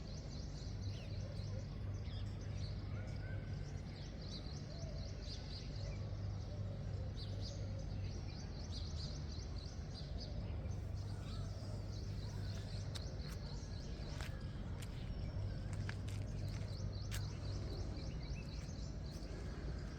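Small birds chirping at dawn: many short, high calls overlapping throughout, over a steady low hum. A few sharp clicks come in the second half.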